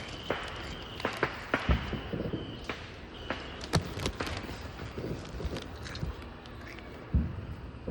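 Fireworks going off: a string of sharp pops and cracks at irregular intervals, with a couple of louder, deeper booms, one about two seconds in and one near the end.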